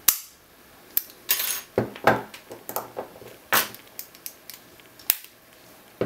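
Four-pin Zenith 38 brass padlock being picked open: one sharp metallic click right at the start as the lock gives, then a run of irregular metal clicks, a short rattle and knocks as the freed shackle is worked and the padlock is handled and set down on a wooden table.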